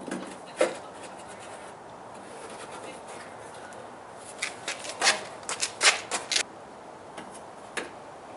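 Hands working parts in a car's engine bay make scattered short clicks and taps, with a quick cluster of them in the middle.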